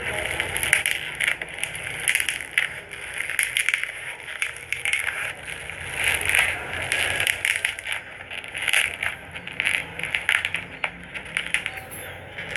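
Giant foam slime being handled, giving a dense, irregular run of crackles and pops.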